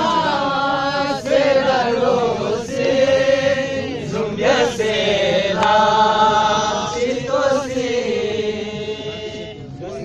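Men singing a Balti ghazal unamplified, in long held notes that slowly bend up and down.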